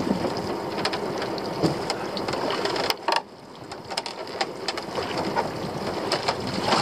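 Crab pot being hauled up out of the sea against the side of a small boat: water splashing and dripping off it, with clicks and knocks of rope and pot, over steady wind and sea noise. The noise drops briefly about three seconds in.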